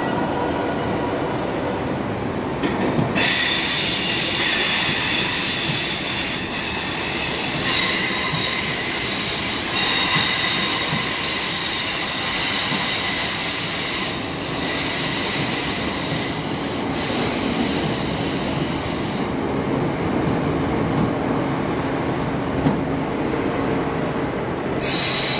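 Train wheels squealing against the rails as a train moves through the station, over a steady rumble of running wheels. The high squeal of several tones sets in about three seconds in and dies away about two-thirds of the way through, with a short flare near the end.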